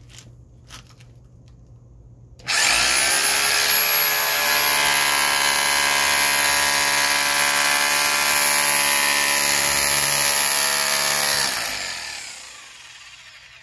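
Rotary hammer with a chisel bit hammering on the end of a seized CV axle stub to drive it out of the wheel hub. It starts about two and a half seconds in, runs steadily at full speed for about nine seconds, then stops and its motor winds down.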